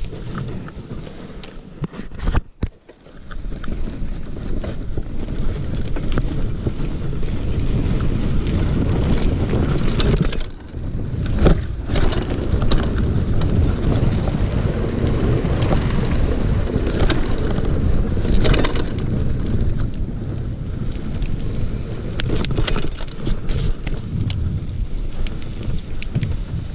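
Mountain bike descending a dirt trail at speed: wind rushing over the camera microphone and tyres rumbling over the ground, with sharp knocks and rattles from the bike over bumps. The noise drops briefly a couple of times.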